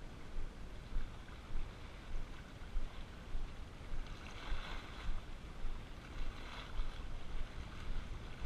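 Wind rumbling on the microphone in repeated gusts, with the soft wash of small sea waves on the rocks that briefly hisses louder twice past the middle.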